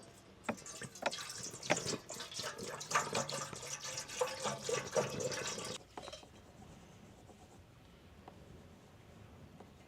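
Liquid being poured into a container, splashing with small clicks, then cutting off about six seconds in.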